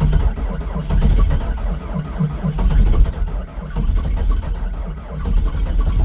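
A cold diesel truck engine being cranked over by its starter in a slow, even rhythm of about two compression pulses a second, without firing.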